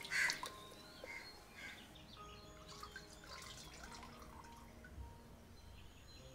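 Water splashing and dripping as whole fish are washed by hand in a pot of water. A loud splash comes right at the start, followed by smaller drips and trickles as a fish is lifted out.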